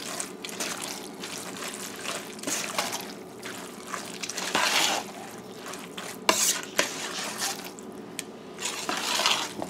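Metal spoon stirring a thick mixture of macaroni, egg, evaporated milk and grated cheddar in a stainless steel pot: irregular wet stirring strokes, with a couple of sharp knocks of the spoon against the pot a little past the middle.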